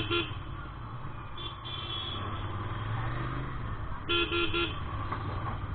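Vehicle horns beeping in road traffic over a steady low engine hum: two quick beeps at the start, a higher-pitched horn about a second and a half in, then three quick beeps about four seconds in.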